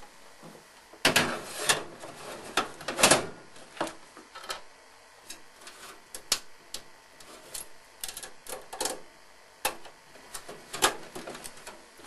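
Irregular clicks and metallic knocks as a computer power supply is fitted into a steel PC case and screwed in with a screwdriver.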